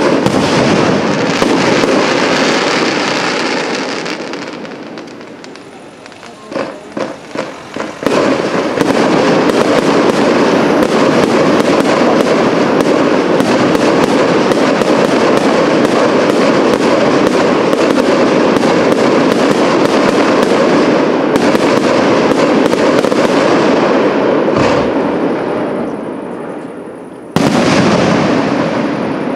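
Aerial fireworks shells bursting: a sudden loud blast at the start, a few separate bangs about seven seconds in, then a long dense barrage of rapid bangs and crackling that fades out, and another sudden blast near the end.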